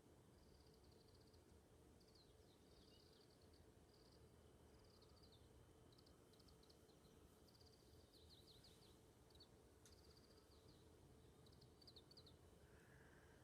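Faint bird song: short high chirps and quick trills, repeated phrase after phrase, with brief pauses between them.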